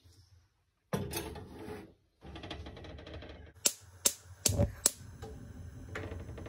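Kitchen handling noise: rustling and clatter, with a run of four sharp clicks near the middle.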